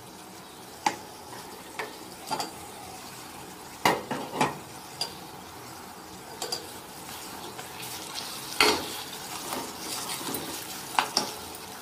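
Steel spoon stirring soaked flattened rice into fried onions in an aluminium pot, knocking against the pot in a dozen or so irregular clinks over a steady low sizzle of the frying mixture.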